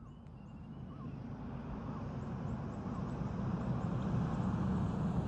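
Pickup truck coming along the road, its engine and tyre noise building steadily to a peak as it passes near the end. A few faint bird chirps in the first half.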